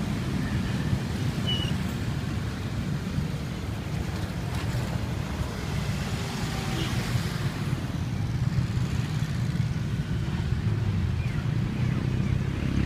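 Road traffic: motorcycles and cars running and passing close by, a steady low engine rumble.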